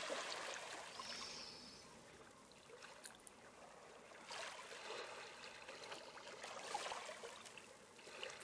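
Faint running water, a stream trickling, swelling and easing every second or two.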